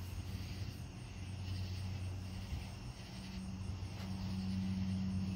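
A steady low hum that swells a little about four seconds in, with a faint high chirring above it.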